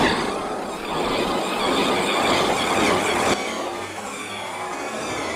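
An off-road RC car driving, a dense loud mix of motor and tyre noise that cuts off suddenly a little over three seconds in. After it comes quieter music.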